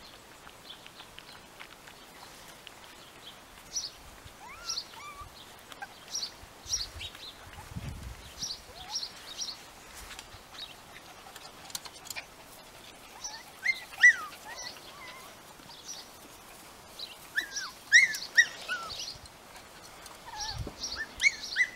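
Small birds chirping, short high notes repeating throughout, with a few louder squeaky calls about 14 and 18 seconds in.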